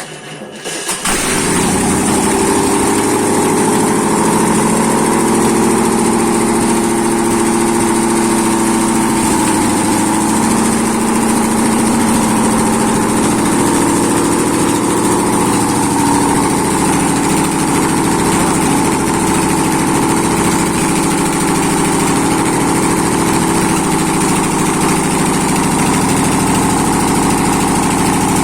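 Freshly overhauled ZMZ-511 carburetted V8 petrol engine starting: it cranks and catches within about a second, then settles into a steady idle.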